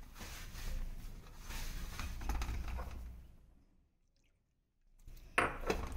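Hands squishing and rubbing a crumbly mix of maize flour and wet chopped fenugreek leaves against a steel bowl while bringing the dough together. The sound drops out to dead silence for over a second about three and a half seconds in.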